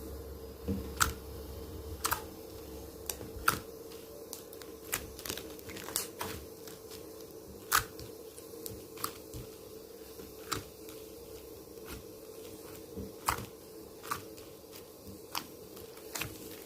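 Slime being squeezed and poked by hand, giving irregular sharp clicks and small pops of trapped air, over a faint steady hum.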